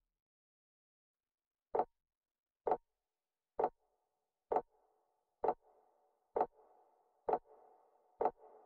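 Eight evenly spaced ticks, a little under one a second, opening a recorded song, with a faint soft sustained tone joining under them about halfway through.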